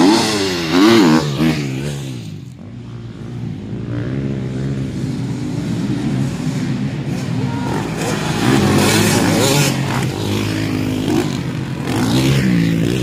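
Motocross motorcycles revving hard over a jump, engine pitch rising and falling as the throttle is worked. The engines are loudest about a second in and again between about eight and ten seconds.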